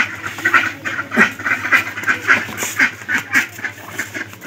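Domestic ducks quacking, a run of short calls in quick succession, about three to four a second.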